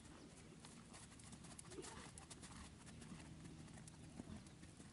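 Faint hoofbeats of a horse trotting on a sand arena, a scatter of soft clicks and thuds that are thickest about halfway through.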